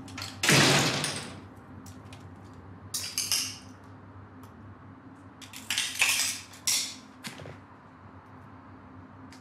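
Short handling noises of someone moving about: a loud rustling scrape about half a second in, then a few briefer clinks and rustles around three seconds and again around six to seven seconds, over a low steady hum.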